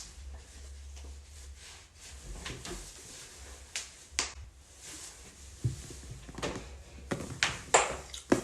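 A person's neck and other joints cracking in a scattered series of sharp pops, the loudest near the end, over a faint low hum. The pops come from joints gapping, which the chiropractor puts down to a gas bubble forming in the joint.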